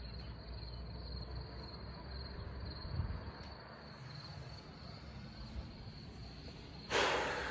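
Crickets chirping in a steady, high, pulsing trill. A brief loud burst of noise comes near the end.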